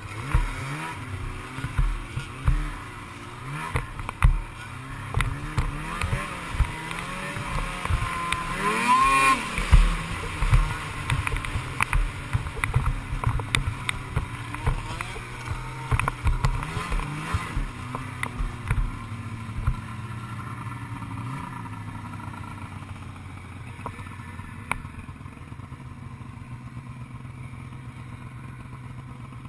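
Snowmobile engine heard from the rider's seat, revving up and down as the sled rides, with frequent sharp thumps. About two-thirds of the way through the revving stops and the engine settles to a steadier, quieter note.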